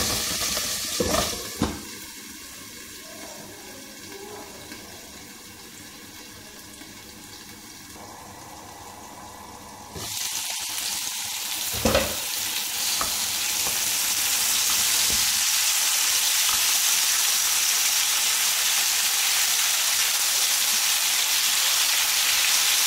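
Sliced potatoes frying in oil in a nonstick pan: a soft hiss while the glass lid is on, then a much louder, steady sizzle from about ten seconds in, once the pan is uncovered. There is a single knock a couple of seconds after the sizzle gets louder.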